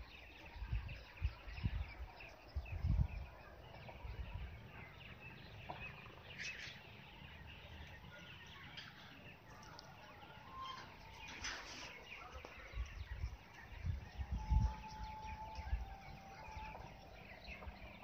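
Peafowl foraging, giving scattered short calls and clucks, with two louder calls, one about a third of the way in and another past the middle. Low thumps on the microphone near the start and again later.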